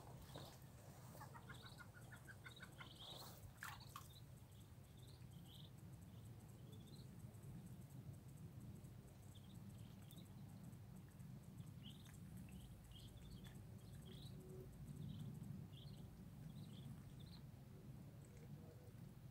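Madagascar teal ducklings peeping faintly: short, scattered high peeps, with a quick run of repeated notes about a second in, over a low steady background hum.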